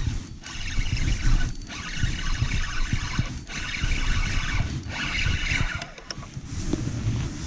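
Spinning reel being cranked in while fighting a hooked walleye, a mechanical whir that pauses briefly every second or so, over wind rumbling on the microphone.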